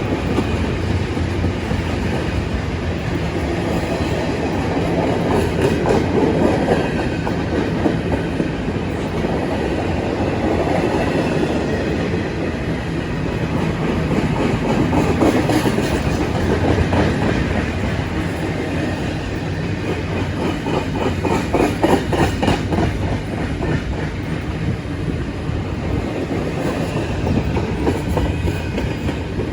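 A train rolling past, its wheels clacking steadily over the rail joints.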